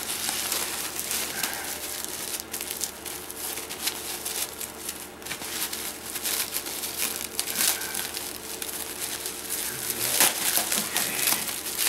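Plastic bubble wrap crinkling and crackling as fingers pick at it and pull it around a wrapped bundle, growing louder near the end.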